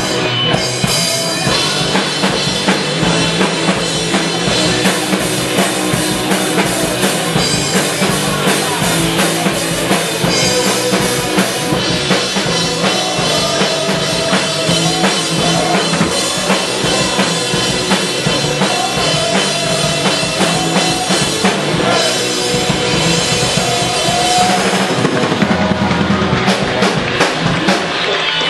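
A band playing a rock song with the drum kit up front: kick drum, snare and cymbals driving a steady beat under the other instruments.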